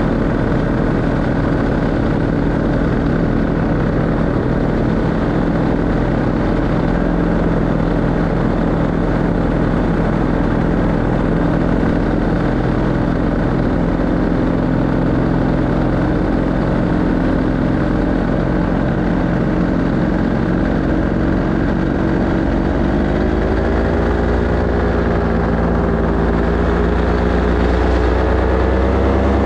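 Paramotor engine and propeller running steadily in flight. From about three-quarters of the way in, the pitch rises as the engine revs up.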